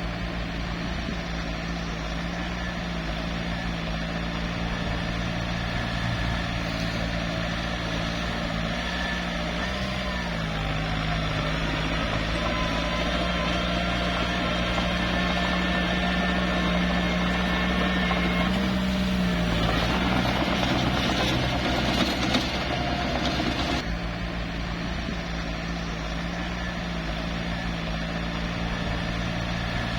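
Small bulldozer's diesel engine running steadily, its pitch lifting briefly twice, with a rougher, noisier stretch of a few seconds about two-thirds of the way through.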